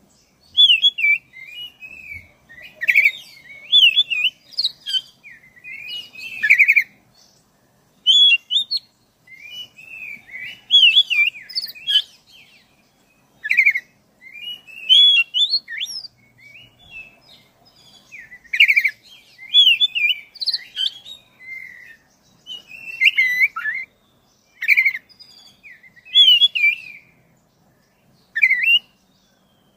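Black-breasted oriental magpie-robin (kacer dada hitam) in full song: a long run of varied whistled and warbling phrases, each a second or two long with brief pauses between.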